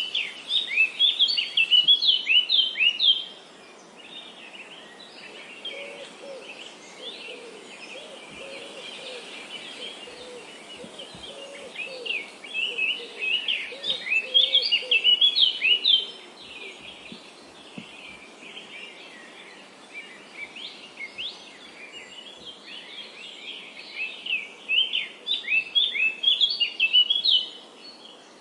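Various birds chirping, with three loud spells of rapid high chirps (at the start, in the middle and near the end) and quieter chirping between, over a steady background hiss. Lower-pitched calls join in during the middle.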